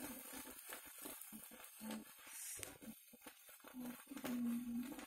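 Two hand-held-style sparklers fizzing and crackling faintly as they burn, with scattered small crackles. A faint low held tone comes in about four seconds in.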